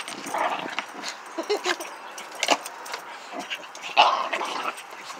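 Dogs jostling and scrambling over a person's lap, with two short dog barks, the louder one about four seconds in.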